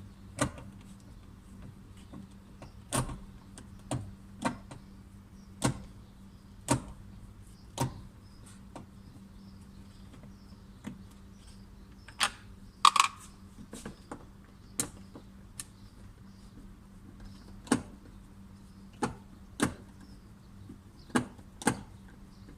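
Irregular sharp clicks and knocks of hand tools and trim parts as a car door is taken apart to reach the central-locking door lock actuator, with one louder knock and a brief metallic ring about halfway through.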